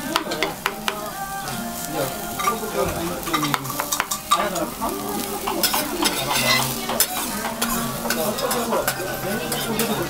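A spoon clinking and scraping against a small metal bowl as okonomiyaki batter and shredded cabbage are stirred, then the mix tipped out and spread on a hot teppan griddle, sizzling.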